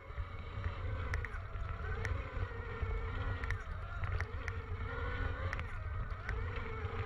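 Electric kids' dirt bike riding over a dirt track: the motor's whine rises and falls with the throttle over a heavy rumble of wind on the microphone, with scattered sharp clicks.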